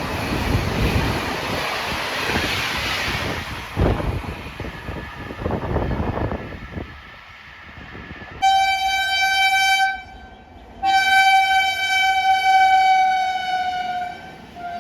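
Rumbling, rushing noise of a train running through the station for the first several seconds, then a locomotive horn sounding two long blasts, the first about a second and a half starting about eight and a half seconds in, the second about three seconds long and dipping slightly in pitch as it ends.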